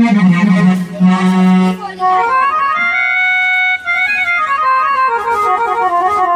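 Casio CT-X870IN/CT-X700 electronic keyboard playing one of its built-in GM tones. A low note is held for about two seconds, then a run of sustained notes climbs to a high note about three seconds in and steps back down.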